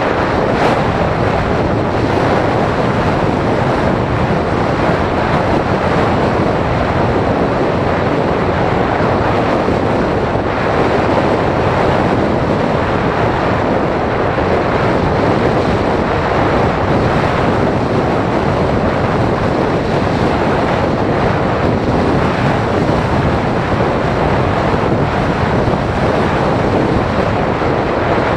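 Steady, loud rush of airflow buffeting the microphone of a camera carried on a model glider in flight.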